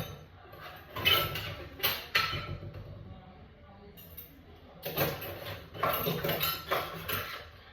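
Dirty dishes and cutlery clinking and knocking as they are loaded into a dishwasher, in two bouts of clatter, about a second in and again about five seconds in.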